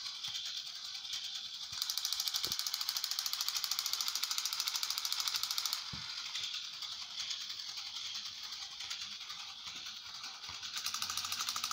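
Battery-powered crawling toy soldier running. Its gear mechanism makes a rapid, even clicking from about two seconds in until about six seconds in, then a quieter whir, and the clicking starts again near the end.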